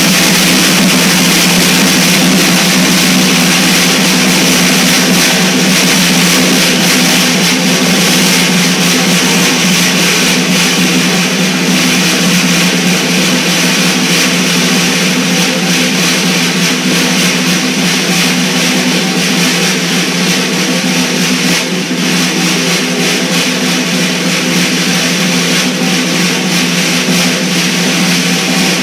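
Snare drum played with sticks in a continuous fast roll: a dense, unbroken stream of strokes over a steady low ring from the drum.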